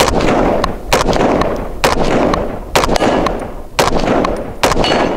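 DSA Bush Warrior FN FAL rifle (7.62×51mm) fired semi-automatically: six shots at roughly one per second. Each shot is followed by a long rolling echo.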